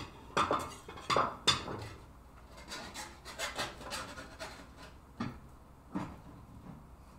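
Kitchen clatter in short knocks and scrapes: a spatula scraping and tapping in a frying pan as an omelette is lifted, and a ceramic plate set down on a wooden cutting board. The loudest knock comes about one and a half seconds in.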